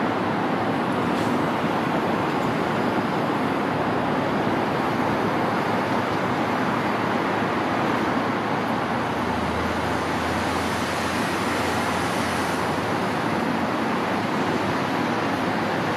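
Steady rushing noise of road traffic, with a low rumble swelling for about three seconds just past the middle as a vehicle passes.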